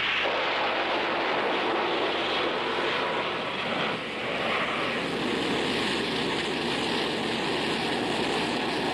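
Aircraft engine running steadily, a dense even rushing noise with a brief dip in level about four seconds in.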